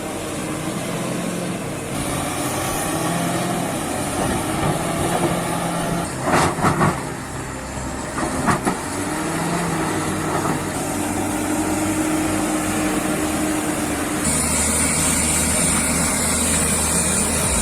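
Bulldozer's diesel engine running with its steel tracks clattering, and a few loud sharp knocks about six and eight and a half seconds in.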